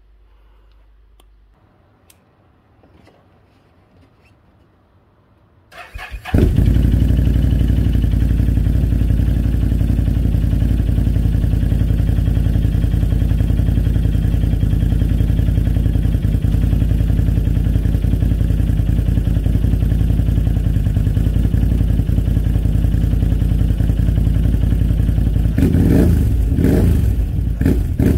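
Can-Am Outlander ATV engine starting about six seconds in and then idling steadily through its custom muffler fitted with an inner baffle, with a few short throttle blips near the end.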